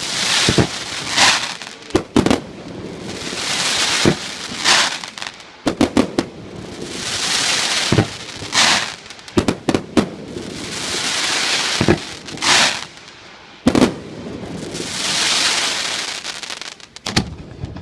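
Aerial fireworks display: sharp bangs of bursting shells, several in quick clusters, alternating with long swells of crackling hiss that come and go every few seconds.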